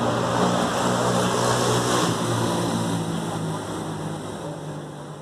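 Small single-cylinder street motorcycle engines running, one close by idling with a steady low hum, over a broad hiss of outdoor traffic. The sound fades out over the last two seconds.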